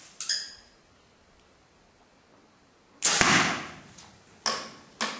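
Arrows striking a foam 3D archery target with sharp thwacks. There is a short hit with a faint ring just after the start, the loudest hit comes about three seconds in, and two quicker ones follow near the end.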